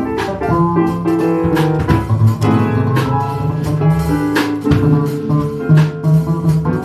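Jazz quartet playing a swing tune, with a guitar to the fore over a walking low line and drums.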